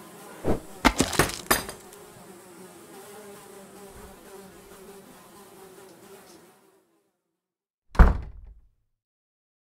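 Cartoon sound effect of a swarm of flies buzzing, broken by four sharp smacks in the first second and a half. The buzzing stops suddenly about six and a half seconds in, and a single heavy thump follows at about eight seconds.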